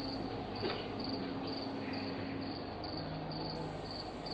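Cricket chirping steadily about twice a second over a low, steady electrical hum.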